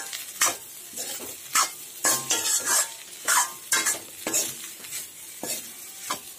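Metal spatula scraping and tossing fried Maggi noodles and pasta around an aluminium kadai, in sharp strokes at about two a second, over a light sizzle of the food frying in oil.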